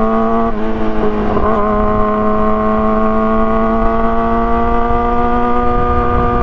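2017 Yamaha R6's 600 cc inline-four running through an Akrapovic exhaust, its note wobbling briefly in pitch in the first second and a half, then climbing slowly and steadily as it pulls in gear, with a low rumble of wind and road underneath.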